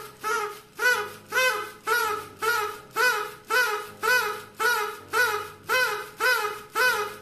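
Paper party blower tooted over and over, about two short toots a second, each one's pitch rising and then falling.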